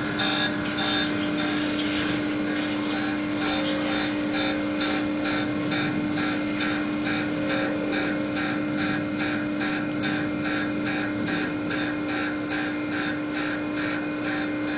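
Surface grinder running, its wheel grinding a cold-rolled steel block and throwing sparks: a steady hum under a rapid, even pulsing of about three a second. The wheel has touched off heavier than intended.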